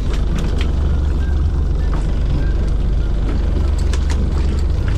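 Fishing boat's engine running with a steady low drone, with a few sharp knocks and taps over it.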